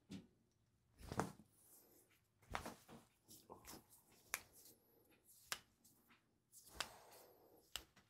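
Near-silent room broken by about seven faint, sharp clicks and taps spread unevenly, roughly one a second, the strongest about a second in. They come from hands handling the patient on the treatment table during a wrist adjustment.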